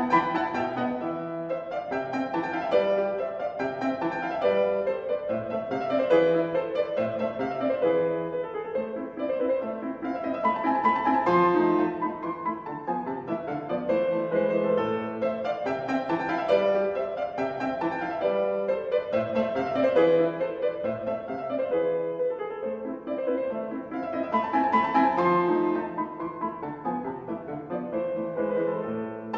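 Instrumental classical-style background music led by piano, playing continuously with many quick notes.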